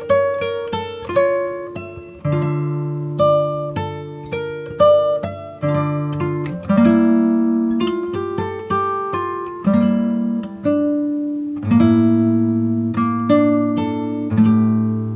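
Background music: an acoustic guitar picking a slow melody over plucked chords, each note ringing and fading.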